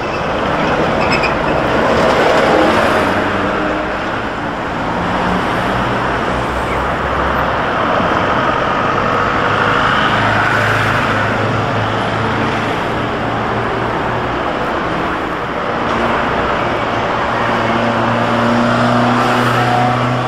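Busy street traffic, with a bus passing close by about two seconds in, then the steady low hum of engines as vehicles approach.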